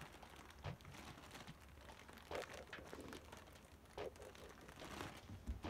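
Faint crinkling of a clear plastic bag around a printer power cord as it is handled, a few soft rustles spread out over several seconds.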